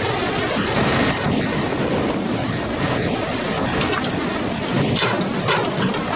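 Hydraulic log grapple crane running steadily, with wind buffeting the microphone. A few knocks come near the end as the grapple closes on a bundle of logs.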